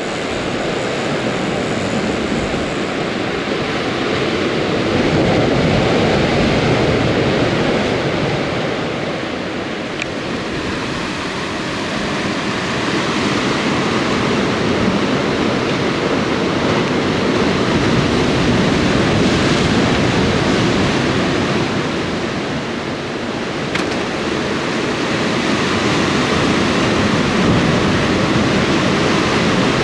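Sea surf breaking against a rocky volcanic shoreline: a continuous rushing wash of water that swells and eases over several seconds at a time.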